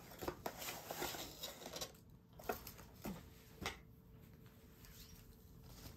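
Faint rustling and clicking of a cardboard box, its paper inserts and swimsuit fabric being handled as the swimsuit is unpacked, with two sharper brief sounds around the middle.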